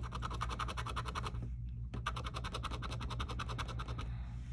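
Rapid back-and-forth scratching of the latex coating off a scratch-off lottery ticket, in two quick runs with a short pause about a second and a half in.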